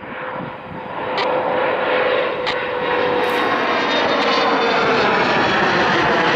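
Bombardier CRJ regional jet's two rear-mounted turbofan engines at climb power as the airliner passes overhead just after takeoff. The sound swells over the first second or so and then holds loud and steady, with a whine that sinks slightly in pitch near the end.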